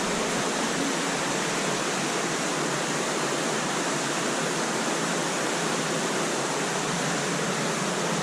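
Cave waterfall: falling water rushing in a steady, unbroken hiss.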